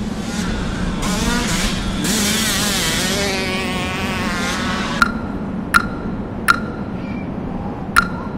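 A motorcycle engine revving and passing by over a rushing hiss, its pitch bending up and down. About five seconds in, sharp ticks with a short ringing tone begin, roughly one every three quarters of a second.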